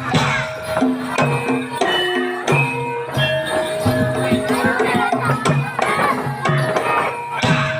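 Live Javanese gamelan-style ensemble music of the kind played for a kuda lumping horse dance: ringing metal-keyed notes step through a melody over steady drum strokes.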